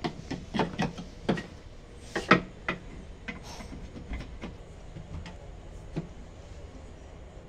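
Upturned wooden chair with a broken leg being handled and worked at the joint, giving a string of sharp wooden knocks and clicks. They come thick for the first three seconds, the loudest about two seconds in, then fewer and fainter.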